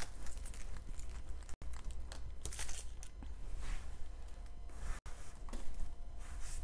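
Small plastic bags of diamond painting drills crinkling and rustling in irregular bursts as they are pushed up and packed into a plastic storage tray.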